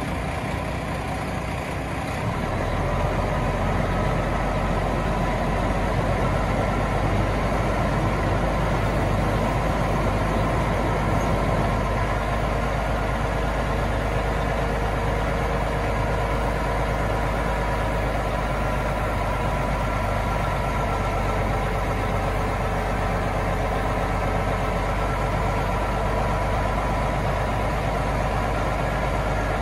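Semi-truck's diesel engine running steadily while the end-dump trailer's hydraulic hoist raises the bed; about two seconds in the engine steps up to a louder, deeper steady run.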